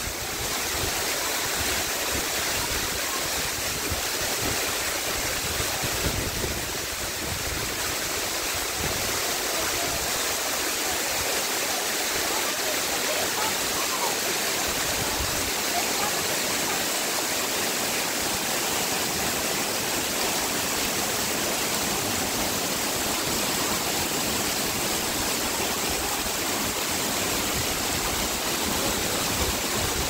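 Waterfall falling from a high limestone cliff and splashing down over boulders in small cascades: a steady, even rush of water.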